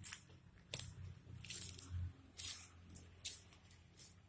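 Footsteps crunching through dry grass and dead leaves, about six steps at an even walking pace.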